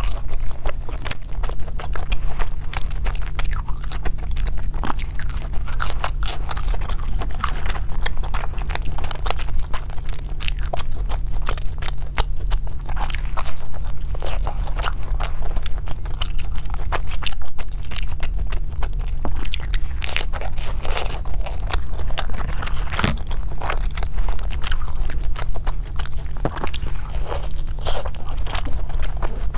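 Close-miked biting and chewing of a deep-fried glutinous rice dumpling (ham sui gok): its thin, flaky fried skin crackles, with wet, sticky chewing of the soft rice filling. A steady low hum runs underneath.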